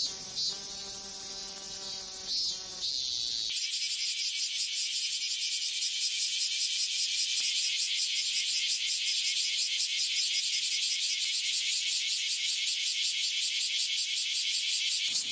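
Cicada singing: a shrill buzzing call with a low hum under it. About three and a half seconds in, it switches abruptly to a steady, rapidly pulsing high buzz.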